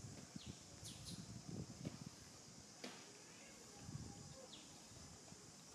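Faint outdoor ambience. Birds give a few short, falling chirps over a steady high hiss, with soft low rustles and a single sharp click about three seconds in.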